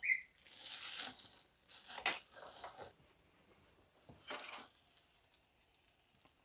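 Faint, scattered rustling and crinkling with a sharp click about two seconds in, from things being handled and cleared up in a kitchen.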